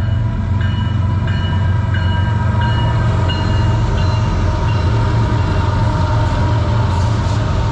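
CN diesel-electric locomotives leading a manifest freight train, passing close by with a heavy, steady engine rumble. A bell dings about every two-thirds of a second and fades out after about five seconds.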